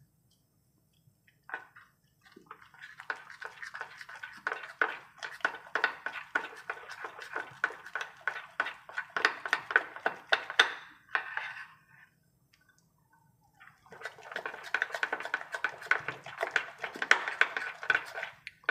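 Metal spoon scraping and clicking rapidly against a ceramic bowl while stirring thick chickpea-flour batter. Two long runs of quick strokes, broken by a pause of about two seconds.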